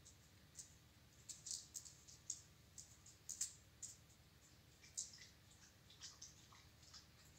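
A dog lapping water from a puddle on a stone floor: faint, irregular wet clicks, several a second.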